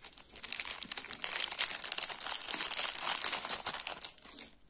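Clear plastic zip-lock bags crinkling and rustling as they are handled, a steady run of small crackles that stops suddenly near the end.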